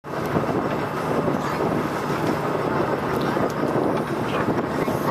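Fishing boat's engine running steadily, with wind buffeting the microphone.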